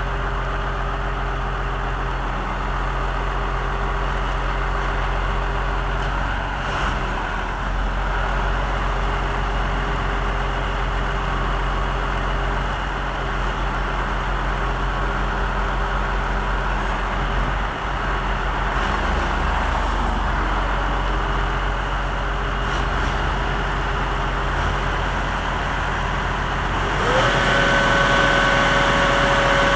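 Heavy diesel engine running at a steady idle, then revving up quickly near the end and holding at a higher, louder whine.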